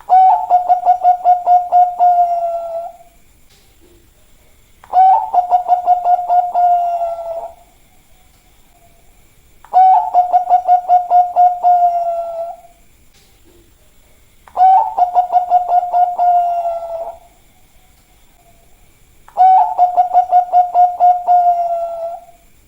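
Zebra dove (Bangkok perkutut) singing: five repeated song phrases about five seconds apart, each a quick run of staccato pulses over a steady, slightly falling coo lasting about three seconds.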